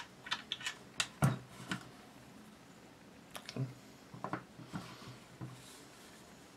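Handling noise of rifle parts during disassembly: a quick run of sharp clicks, a heavier knock just over a second in, then a few scattered softer knocks and taps.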